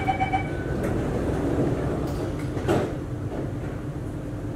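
Singapore MRT Circle Line train doors closing: the last of the rapid door-closing beeps, then the sliding doors shutting with a knock about two and a half seconds in, over the steady hum of the standing train.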